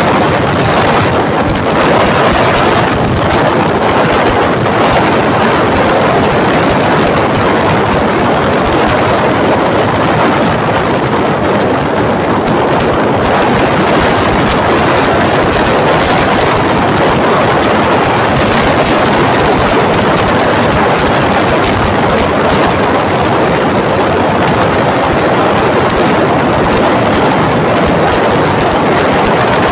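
Loud, steady rush of wind and road noise while riding a motorcycle at speed, the wind buffeting the phone's microphone.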